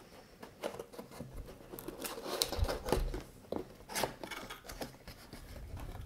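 Cardboard box being opened by hand: the flaps are pulled open with irregular scraping, rustling and sharp clicks of cardboard, loudest about two to three seconds in.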